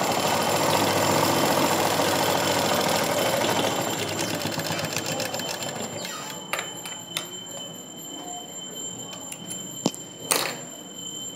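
Belt-driven domestic sewing machine running at speed with a fast, even clatter, slowing and stopping about halfway through. A few clicks and a sharper knock follow near the end.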